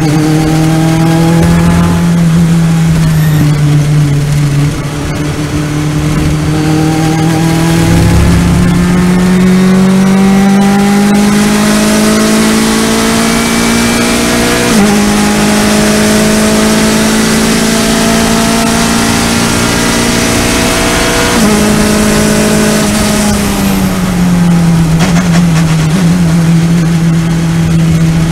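Race car engine heard from inside the cockpit at speed on track. The note climbs steadily under acceleration in fourth gear, drops sharply twice about halfway through and again later, then falls away as the car slows near the end. Wind and road rush swell at the highest speed.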